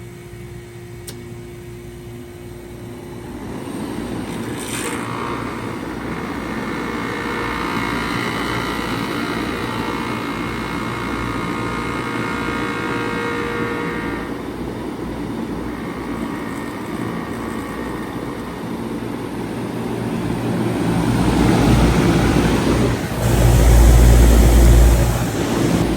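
1995 Bard 3.5-ton wall-hung heat pump running through a defrost cycle: a steady low hum with a rushing noise that swells in a few seconds in. It grows louder near the end, with a heavy low rumble.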